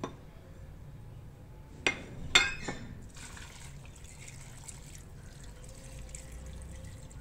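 A few sharp clinks about two seconds in, then water poured in a steady stream into an aluminium pressure cooker, landing on chopped tomatoes and onions.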